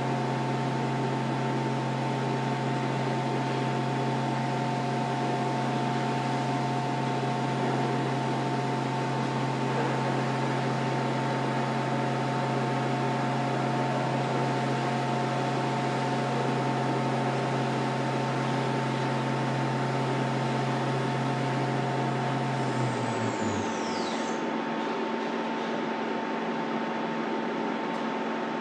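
CNC vertical milling machine running: a steady low hum and several steady tones over a constant hiss as the spindle turns. About 23 seconds in, a whine falls in pitch and the low hum stops, as the spindle winds down.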